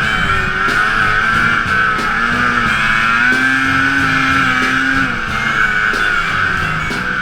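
Rock music with guitar, with a snowmobile engine running at high revs under it.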